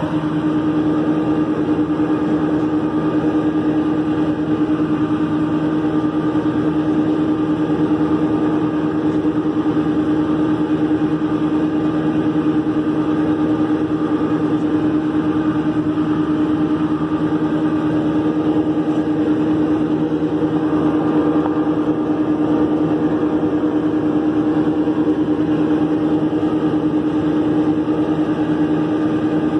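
Tractor engine running steadily under load, pulling a New Holland haybine (mower-conditioner) that is cutting hay: a constant, unbroken drone with a steady hum.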